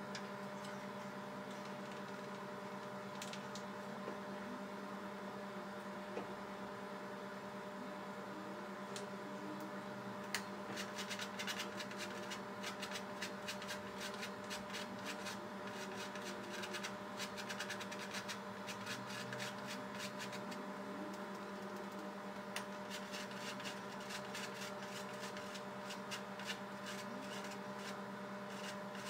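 Steady electrical hum made of several held tones, with a run of fast, faint ticking from about ten seconds in until near the end.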